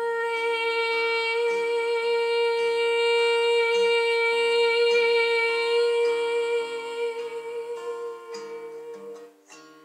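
A woman's voice holds one long note for about nine seconds over an acoustic guitar playing changing notes beneath it; the held note fades near the end.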